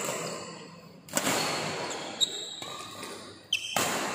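Badminton rally: three sharp racket strikes on the shuttlecock about a second apart, each ringing in the large hall, with short high squeaks of court shoes on the floor.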